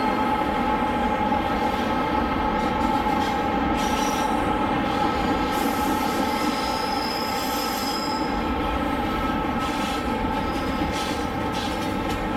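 HO scale model diesel locomotives and grain hopper cars rolling past, a steady whine over a constant rumble of wheels on track, easing a little as the locomotives give way to the hoppers.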